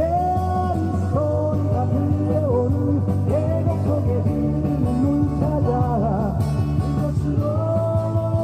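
Live acoustic guitar music, with a melody of long held notes that bend and waver over steady bass notes.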